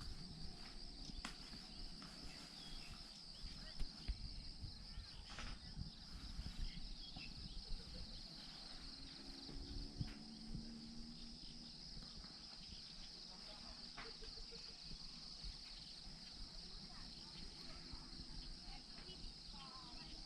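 Steady, high-pitched chorus of insects, with faint voices in the background and a few scattered clicks.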